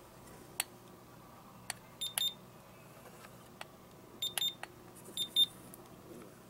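Bluebird BO-350 infrared thermometer beeping as its trigger is pressed to take readings. Short high beeps come in small clusters about two, four and five seconds in, with a few sharp clicks between them.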